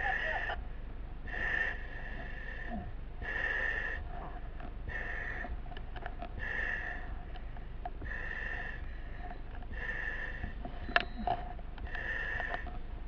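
A firefighter breathing through a breathing-apparatus face mask: the demand valve hisses with each breath, about once every one and a half seconds, with a single sharp click about eleven seconds in.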